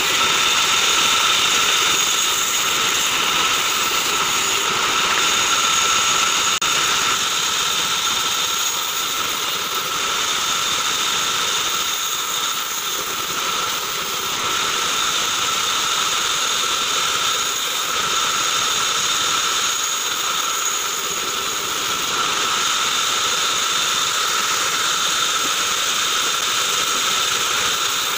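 Band saw running and cutting through short log sections fed by hand: a steady whining machine noise that holds level throughout.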